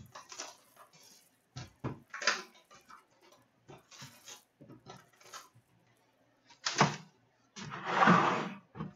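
Cellophane shrink wrap and a trading-card hobby box being handled: the plastic crinkles in short bursts and the box and card packs knock against a glass counter. There is one sharp knock about two-thirds of the way through, and the loudest sound is a longer crinkle of plastic near the end.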